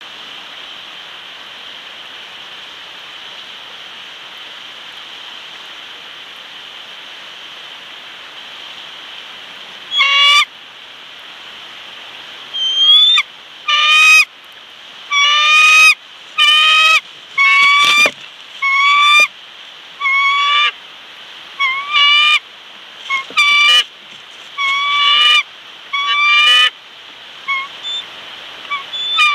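Bald eagle on its nest giving a run of short, high piping calls, roughly one a second, starting about a third of the way in, over a steady hiss.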